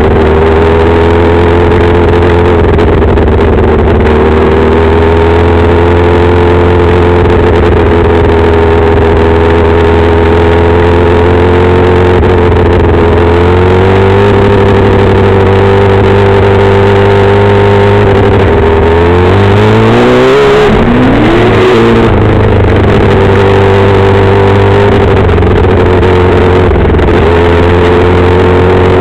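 Compact speedcar's engine running hard at racing speed, heard on board from inside the cockpit. About two-thirds of the way through, the engine note falls and then climbs sharply back up before settling again.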